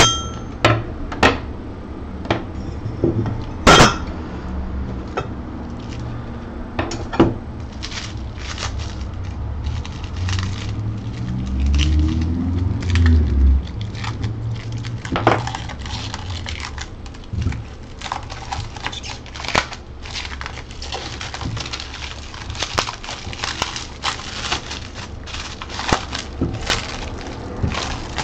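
3D printer parts being unpacked and handled: scattered clinks and knocks of small metal pieces against each other and the table, with crackling of packing material and a short low rumble about halfway through.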